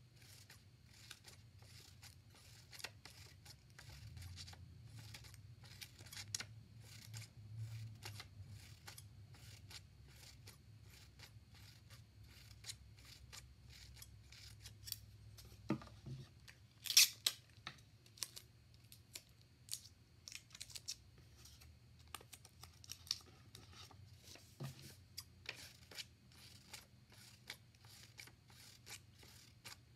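Scissors snipping around a circle of yellow paper: a steady run of short, sharp cuts, with a louder cluster of snips a little past halfway.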